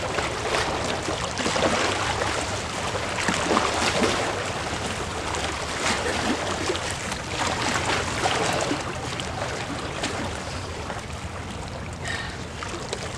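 Water splashing and sloshing at the lake's edge, with many short irregular splashes over a steady rush of water and wind noise.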